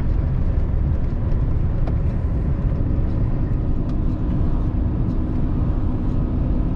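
Steady cab noise of a semi-truck driving at road speed: engine drone with wind and road rumble coming in through an open cab window.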